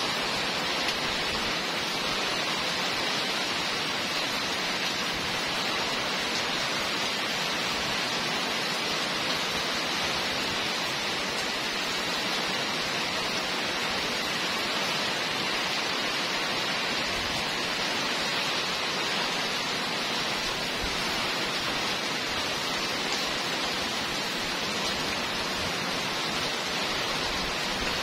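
Heavy rain pouring steadily onto a wet street, an even hiss that holds unchanged throughout.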